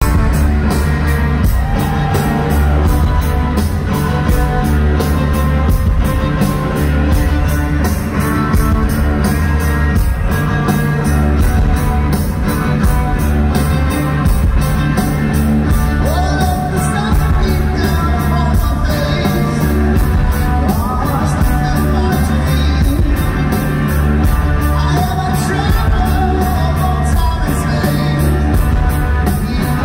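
Rock band playing live with a lead singer over a steady drum beat, heard from the audience in a large arena.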